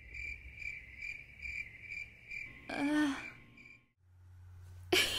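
Cricket-chirping sound effect, a steady run of short high chirps about two a second, the comic cue for an awkward silence. The chirps stop about four seconds in. A brief falling voice sound comes about three seconds in, and a voice starts near the end.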